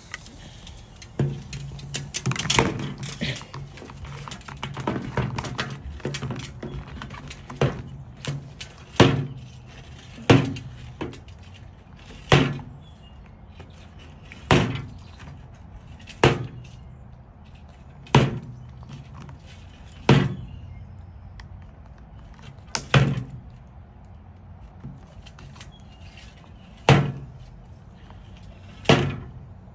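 A spray bottle knocked against a glass tabletop by a cockatoo biting and pushing it: a quick clatter of knocks over the first several seconds, then single sharp knocks about every two seconds.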